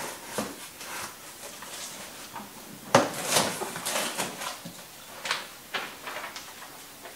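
Cardboard box and packing material being handled and rustled as the box is unpacked. There is a sharp knock about three seconds in, followed by about a second of rustling, then a few lighter clicks and rustles.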